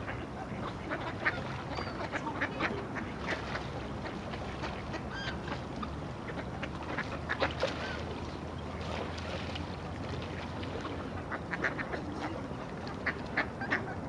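Mallards quacking, many short calls scattered throughout, over a steady low hum.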